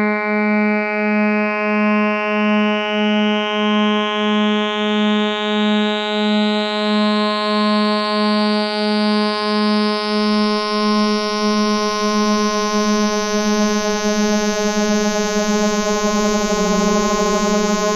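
Modular synthesizer drone tuned around 210.4 Hz: a steady low tone with a stack of overtones, pulsing a little under twice a second, while a bright upper shimmer slowly rises in pitch. Near the end the pulsing turns into a faster wobble, one oscillator drifting off the tuning.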